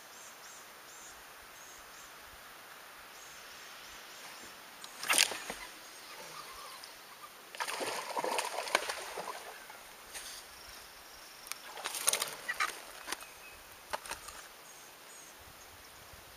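A hooked bass splashing and thrashing at the water's surface while it is fought to the boat and landed. The splashing comes in several short bouts, with the longest about eight seconds in and another around twelve seconds.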